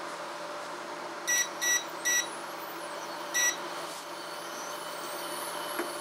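Four short electronic beeps, three in quick succession about a second in and a fourth a little over a second later, from the touch controls of a portable electric cooktop being set, over a steady hum.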